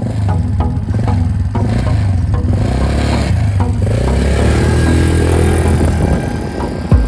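Engine of a small youth quad bike running steadily, then rising and falling in pitch as it pulls away across the sand.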